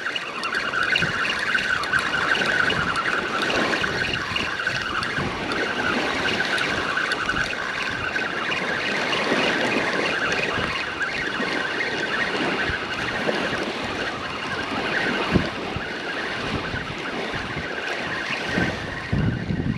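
Strong wind on the microphone over ocean surf, a steady rushing noise, with a steady high-pitched whine running through it.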